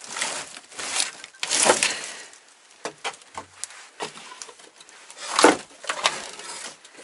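Rustling and bumping of things being handled and moved about in a small room, in irregular bursts, the loudest about halfway and again near the end, with a few sharp knocks in between.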